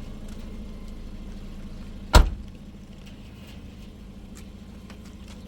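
A single loud bang about two seconds in, over a steady low hum.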